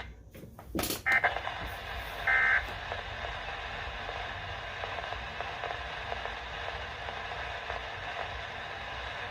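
Weather radio receiver sounding short digital data bursts about a second apart, which end near the start: the pattern of SAME end-of-message tones. A crackle follows, then steady radio static hiss.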